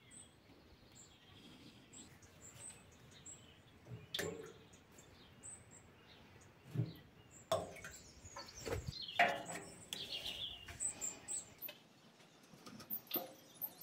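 Faint high bird chirps, short and repeated about twice a second, over quiet room tone. Scattered knocks and rustles of a refilling syringe being handled at the engine's fuel tank come around the middle and later on.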